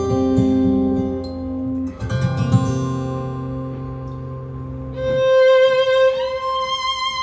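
Recorded music played through Bowers & Wilkins 600 series loudspeakers: plucked guitar over low bass and held string notes. About five seconds in, the bass drops away and a solo violin line enters, sliding up into its note.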